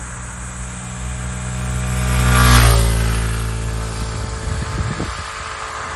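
A SYM Symphony ST 125 scooter's single-cylinder four-stroke engine passes by at speed. Its steady, very quiet hum swells to its loudest about two and a half seconds in, with a short rush of wind and tyre noise. The note then drops slightly in pitch and fades as the scooter rides away.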